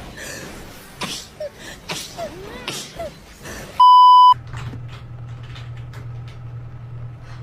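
A loud, steady 1 kHz bleep tone lasting about half a second, about four seconds in, the kind of beep edited into videos to censor a sound. Before it come short scattered vocal noises; right after it a steady low hum sets in.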